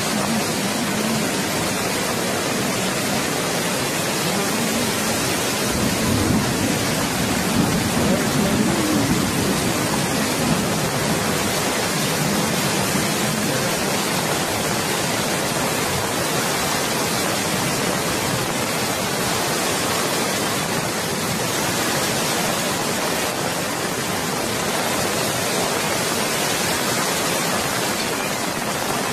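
Flash floodwater rushing past as a torrent: a loud, steady, dense noise that swells a little between about six and ten seconds in.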